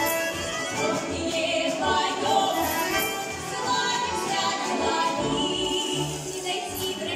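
Women's voices singing a Kuban folk song in unison, accompanied by a Russian folk-instrument ensemble of strummed balalaikas and other plucked string instruments.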